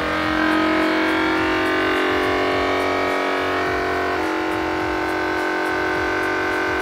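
Vacuum sealer's pump running with a steady hum as it draws the air out of a bag of food before the heat seal. Its tone shifts slightly about four seconds in.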